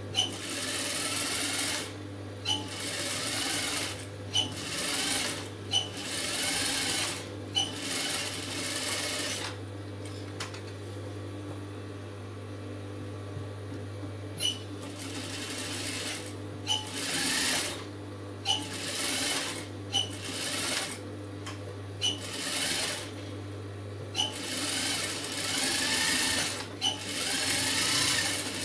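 Industrial lockstitch sewing machine stitching through blouse fabric and foam padding in short runs of one to two seconds, stopping and starting again and again, with a sharp click at each start or stop. A steady low hum continues between runs, and there is a longer pause of a few seconds near the middle.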